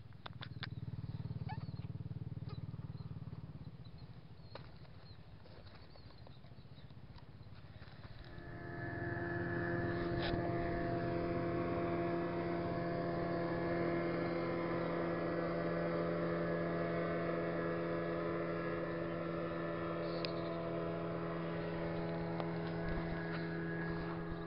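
Small motorboat's engine running at a steady pitch as the boat crosses the water. It comes in loud about eight seconds in, after a few light clicks.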